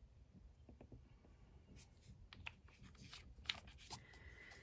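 Near silence: quiet room tone with a few faint, light clicks and taps of small objects being handled on a tabletop.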